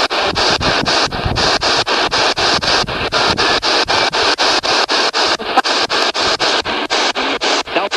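P-SB7 spirit box sweeping through radio stations: a loud hiss of static chopped into short bursts about five times a second as it jumps from station to station.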